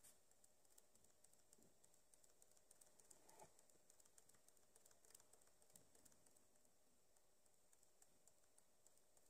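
Near silence: faint room tone with scattered soft clicks, like computer input while the page scrolls.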